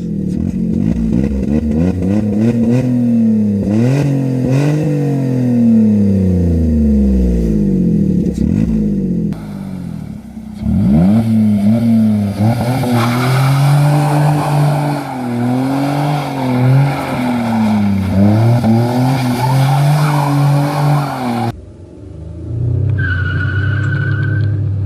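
Skoda 1.2 HTP three-cylinder petrol engine revving up and down over and over, across several recordings with abrupt cuts between them. A short high-pitched whine comes near the end.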